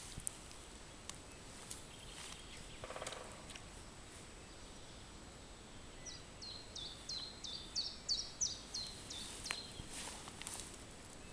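A songbird sings a run of about a dozen quick, repeated falling high notes, starting about six seconds in and lasting some three seconds, over a faint outdoor hiss. A few sharp ticks sound in the first two seconds.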